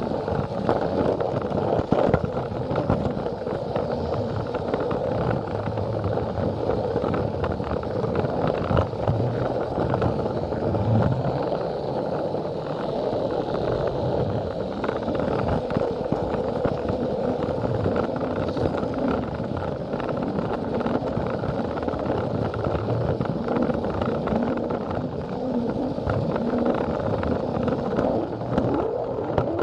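Plarail battery-powered toy train running along plastic track, heard from aboard the train: a steady rattle of the motor, gears and wheels on the plastic rails.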